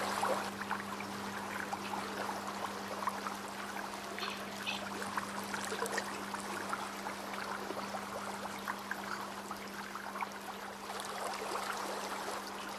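A crab picking at and eating a pomegranate aril in shallow water: many small wet clicks and crackles over a trickling-water hiss, with a steady low hum throughout.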